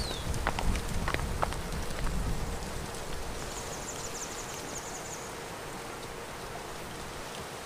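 Outdoor wind noise and rustle, heavier for the first three seconds and then settling to a steady hiss, with a few sharp hoof clicks on the gravel track as a horse walks past early on. A short falling whistle of a bird sounds right at the start, and a rapid high trill runs for about two seconds in the middle.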